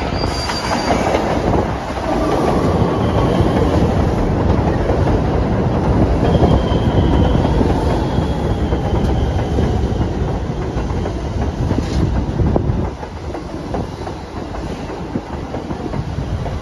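Subway train of R62A cars running into an elevated station, its wheels rumbling and clattering over the rails, with a faint high wheel squeal and a falling whine as it slows. The noise drops off about thirteen seconds in.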